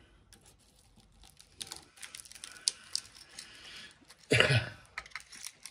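A long metal rod prying at a taped electrical coil clamped in a steel bench vise: scattered small clicks and scrapes of metal on metal, with one louder scrape about four seconds in.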